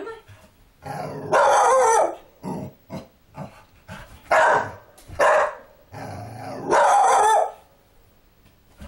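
A frightened dog barking loudly four times at a doll it is scared of, with low growls leading into some of the barks.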